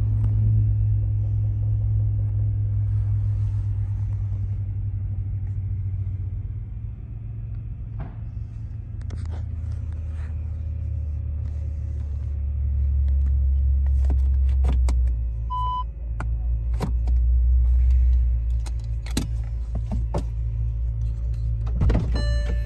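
2012 Bentley Continental Supersports' 6.0 L twin-turbo W12 idling, a steady low rumble heard inside the cabin. Scattered clicks and a short electronic beep about sixteen seconds in sound over it.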